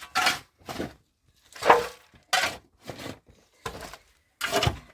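A series of sharp knocks and cracks, about seven separate impacts at uneven intervals of roughly half a second to a second.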